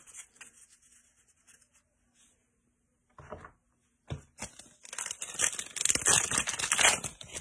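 Foil wrapper of a 2022 Elite football trading-card pack being picked up and torn open: a brief rustle about three seconds in, then about three seconds of continuous crinkling and tearing of the foil.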